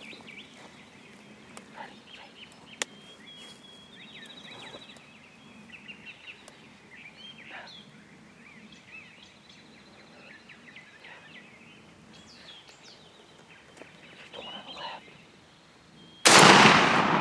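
Small birds chirping and trilling in the woods, then about sixteen seconds in a sudden loud shotgun blast fired at a turkey.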